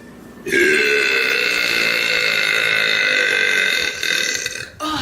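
A woman's long, loud burp, starting about half a second in and held for about three and a half seconds before trailing off, with a short second burp near the end.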